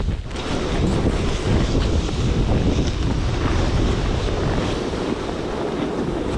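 Strong wind buffeting the microphone in a snowstorm, a dense, steady rumble.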